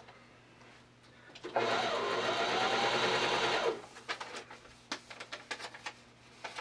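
Janome HD-3000 sewing machine running for about two seconds as it stitches through fabric, then stopping abruptly. A few light clicks follow.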